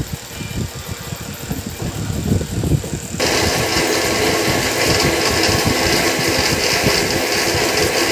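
A few low handling knocks, then about three seconds in a loud, steady electric-motor noise switches on abruptly and keeps running.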